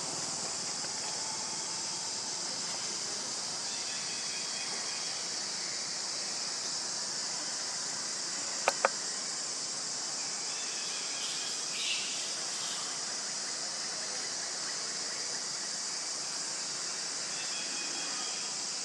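Steady, high-pitched insect drone of a forest, with a few faint chirps and two sharp clicks close together about halfway through.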